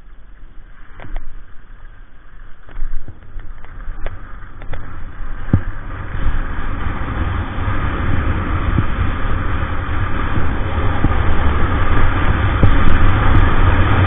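Wind buffeting an action camera's microphone as a skier runs down a groomed slope, with skis hissing over packed snow. The low rumbling rush grows steadily louder as speed builds; a few sharp clicks come in the first few seconds.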